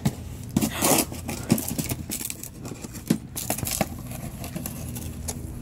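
An Alaskan malamute mouthing and tearing at a small cardboard box: irregular crackles, scrapes and rips of cardboard, the strongest in the first second. A steady low hum runs underneath.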